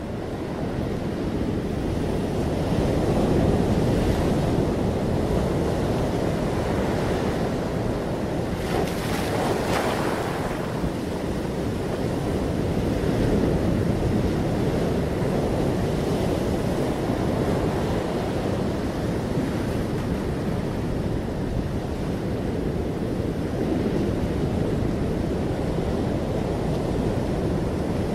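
Ocean surf breaking and washing up a sandy beach among rocks: a continuous wash that swells and eases as the waves come in, with a sharper hissing crash about nine seconds in.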